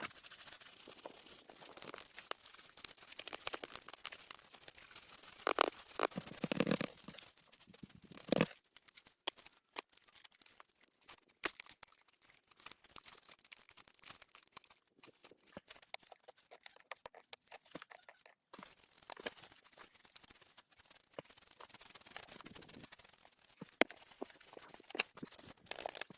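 Scattered crunching, scraping and cracking of handwork with branches and forest debris, with a louder run of knocks and rustling about six seconds in and a sharp knock a little later.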